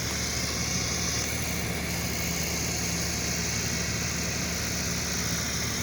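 Vehicle engine running steadily while driving, a constant low drone with no change in speed.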